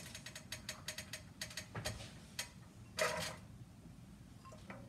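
Faint quick clicks and pops from hot oil in a frying pan, then a short louder sizzle about three seconds in as cherry tomatoes are tipped into the pan.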